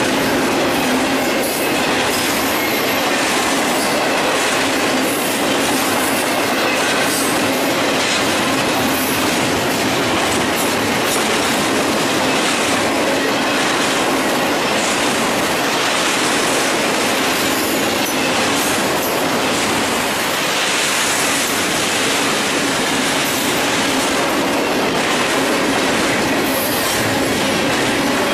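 Double-stack intermodal freight train rolling past, its well cars' steel wheels clattering steadily on the rails in a continuous, even rumble.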